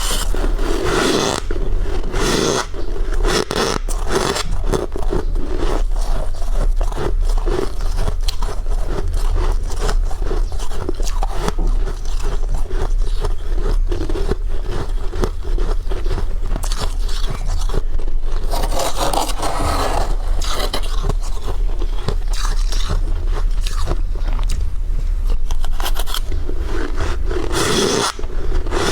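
Freezer frost being bitten and crunched close to the microphone: a dense, continuous run of crisp crunches and scrapes, with louder clusters near the start, about two-thirds of the way through, and near the end.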